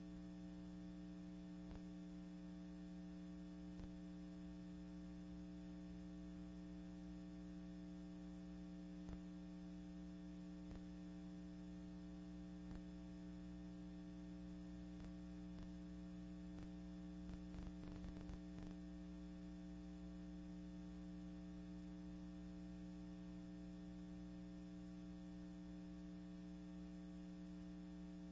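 Steady low electrical mains hum on the soundtrack of a silent archival film transfer, with faint scattered clicks and a short patch of crackle a little past halfway.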